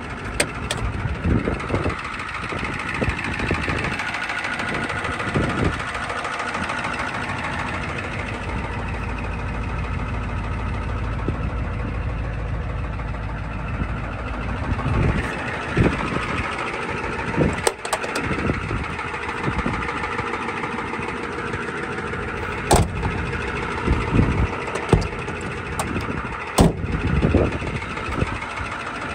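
1994 Ford F350's 7.3 IDI turbo-diesel V8 running at idle, with a few sharp knocks in the second half.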